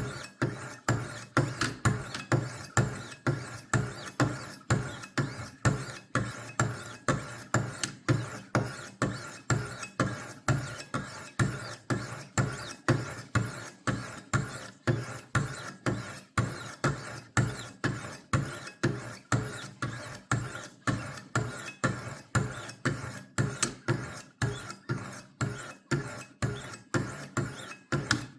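Wicked Edge WE60 sharpening stones stroking along a knife blade in a steady rhythm, about two strokes a second, each a short scrape that starts sharply and fades quickly.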